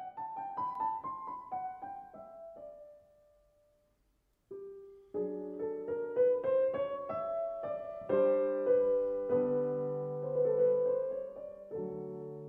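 Piano music: a run of notes stepping downward dies away to a brief silence, then a slow melody over chords begins about four and a half seconds in.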